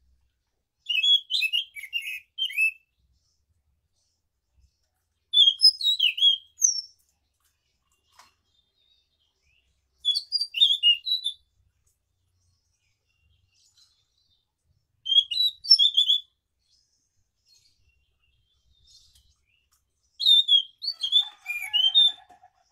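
Caged anis macan thrush singing five short phrases of quick high chirps and whistles, each lasting about one and a half to two seconds, spaced about five seconds apart.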